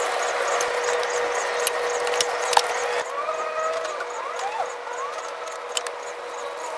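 A broom sweeping soil and dust off a rooftop floor: a scratchy brushing that eases off about three seconds in. Under it runs a steady hum, and a few whistled calls that rise and fall come in during the second half.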